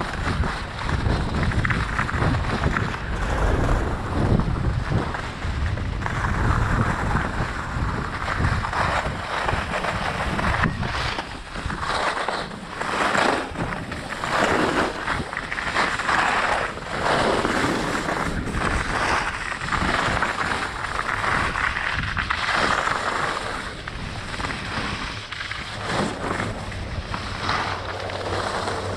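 Skis hissing and scraping over packed snow in a run of turns, the sound swelling and fading with each turn, with wind buffeting the microphone, strongest in the first part.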